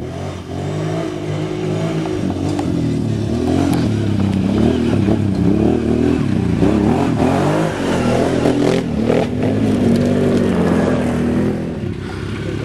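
Quad bike (ATV) engine revving hard as it climbs a rutted dirt track, its pitch rising and falling over and over under load, easing near the end. A couple of sharp knocks about nine seconds in.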